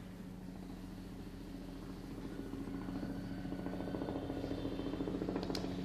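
A steady low mechanical hum with a fast flutter, like a small motor running, growing a little louder over the second half. There are a couple of sharp clicks near the end.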